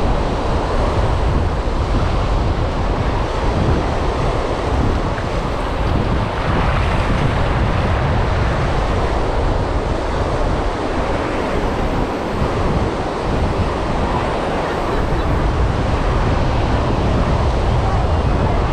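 Wind blowing across the microphone, with a steady rush of surf breaking on a beach.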